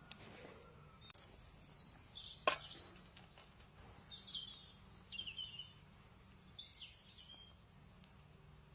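Birds chirping in a series of short, high calls, with one sharp click about two and a half seconds in.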